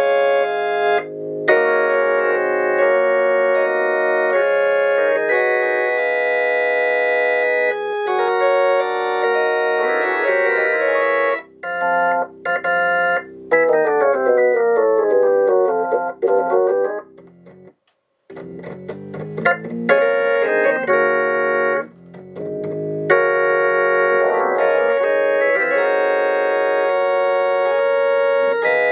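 Hammond organ played through a late-model Leslie 122 amplifier: sustained chords, with a falling run about halfway and a brief break soon after. The sound is thin in the bass, which the player finds not very loud and short on bass for this amplifier.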